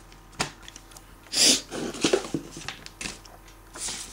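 Paper leaflets and packaging being handled and shuffled: a sharp click about half a second in, a short hissing rush about a second and a half in, then softer, irregular rustling.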